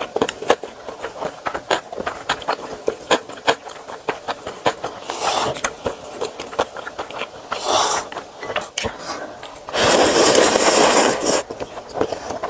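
Eating noodle soup: chopsticks and a ladle tapping and scraping in a ceramic bowl, with chewing and short slurps of noodles and broth. A loud, longer slurp comes near the end.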